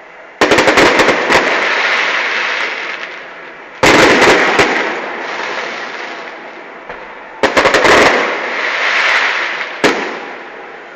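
Aerial fireworks bursting: four loud volleys of bangs a few seconds apart, the first three made of several cracks in quick succession and the last a single sharp crack. Each volley fades away slowly over a few seconds.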